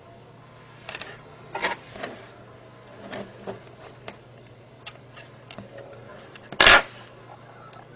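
Irregular small clicks, taps and rustles of a copper wire being handled and its insulation stripped on a tabletop, with one louder short scrape near the end. A low steady hum runs underneath.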